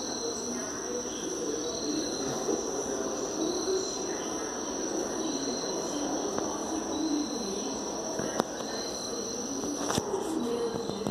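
Steady high-pitched insect trill, with a shorter chirp repeating about once a second and a faint murmur of lower sounds beneath. A couple of sharp clicks come near the end.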